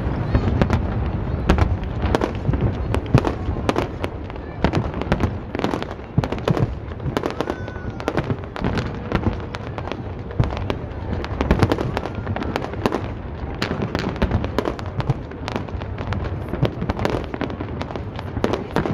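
Aerial fireworks display going off continuously: a rapid, irregular string of bangs and crackles over a steady low rumble.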